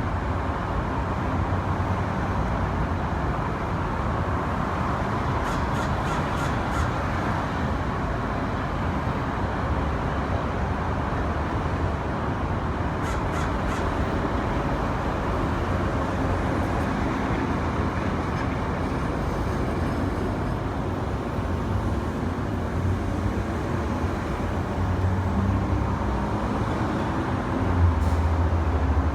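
Fledgling crows cawing now and then over a steady hum of road traffic.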